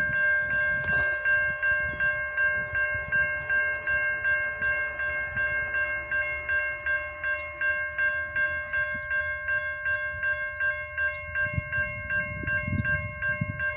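Railroad crossing warning bell ringing in a rapid, steady rhythm as the crossing gates come down.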